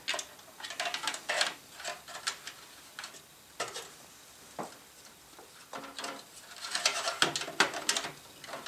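Handling noise from feeding a multi-card reader's cable through a PC case: irregular light clicks, taps and rubbing, busiest near the start and again toward the end.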